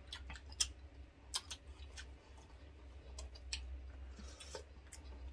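Scattered light clicks and taps of a meal being eaten, a few a second at irregular intervals, over a steady low hum.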